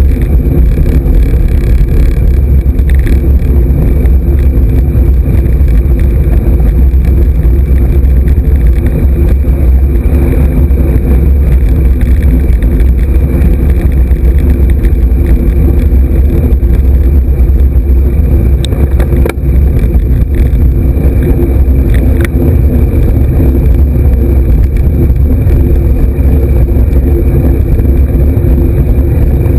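Loud, steady wind and road rumble on a bicycle-mounted camera riding along a tarmac lane, with a few sharp clicks about two-thirds of the way in.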